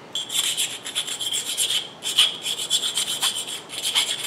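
Metal hand tool scraping burrs out of freshly drilled and tapped bolt holes in a short steel pipe, in quick repeated strokes, about three or four a second, with a thin high metallic ring.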